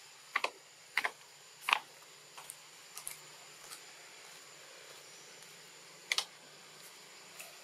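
Short, sharp clicks at irregular intervals: three loud ones in the first two seconds, fainter ones after that, and a double click about six seconds in, over a faint steady high whine.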